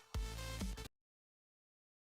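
Background music that cuts off abruptly under a second in.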